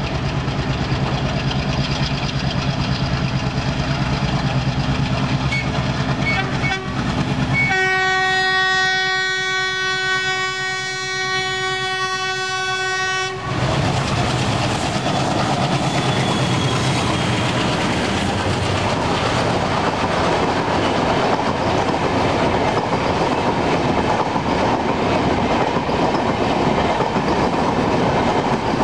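Indian Railways diesel locomotive approaching with its engine running, then sounding one long, steady blast of its air horn for about five seconds. The horn stops about halfway through, and the locomotive and its passenger coaches roll past close by with a steady noise of wheels on rail.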